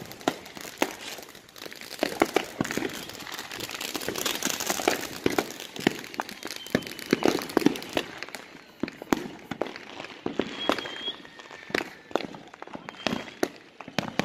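Fireworks going off around the neighbourhood: an irregular run of sharp pops and bangs of varying loudness, with some crackling.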